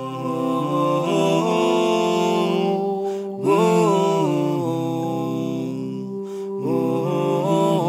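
Background music: a slow vocal chant with long held notes that slide between pitches over a steady low drone, pausing briefly about three seconds in and again about six seconds in.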